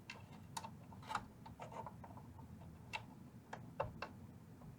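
Faint, irregular small clicks of hand tools and metal as a tightly hooked wire is worked loose from a terminal inside a vintage amplifier chassis, about a dozen ticks at uneven intervals.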